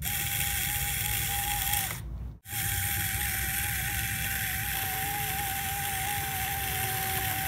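Small electric motor of a toy tractor driving a miniature chaff cutter through its power take-off shaft: a steady whine over a rough hiss, cutting out for a moment about two and a half seconds in.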